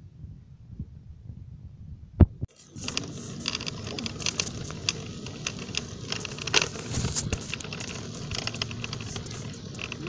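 Low rumble, then one sharp click about two seconds in, then a steady hiss full of irregular small clicks and rustles: handling noise from a hand-held phone's microphone.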